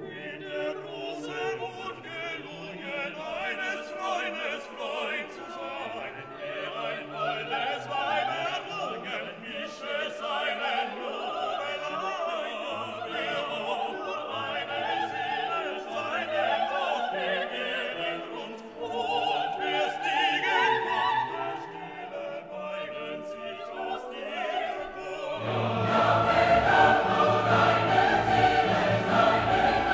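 Background classical music: operatic singing over an orchestra, growing louder and fuller about 25 seconds in.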